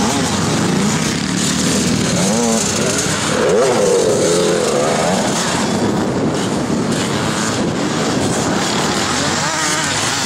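Engines of vintage twin-shock motocross bikes racing on a dirt track, several at once, revving up and down as the riders come through. One engine rising and falling in pitch is loudest about three to five seconds in.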